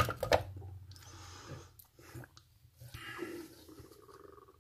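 Eating sounds: a person chewing and breathing, with a few clicks and scrapes of a spoon in a stainless steel tray.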